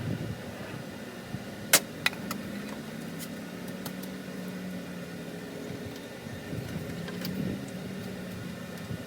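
A motor running with a steady low hum that wavers slightly in pitch, and two sharp clinks about two seconds in.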